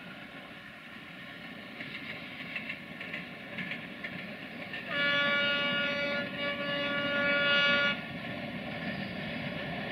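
Romanian LDE2100 (060-DA) diesel-electric locomotive sounding its horn for about three seconds, a loud steady blast with a brief dip partway through, over the running of its Sulzer diesel engine and the rolling of the freight wagons.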